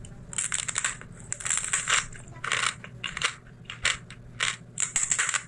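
Close-miked chewing of crunchy food: an irregular run of crisp crunches, several each second.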